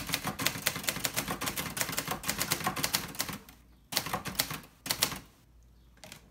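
1963 Hermes 3000 manual typewriter being typed on: a fast run of keystrokes, the type bars clacking against the platen, for about three seconds, then two separate strokes about a second apart.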